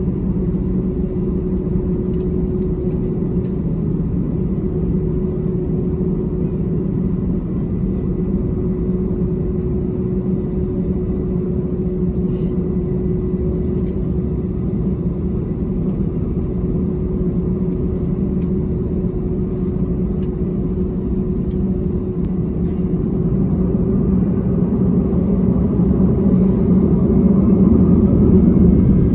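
Airbus A321 cabin noise heard from a rear window seat: a steady low rumble with a steady hum as the jet taxis. In the last quarter the engines start to spool up, the noise growing louder with a rising whine.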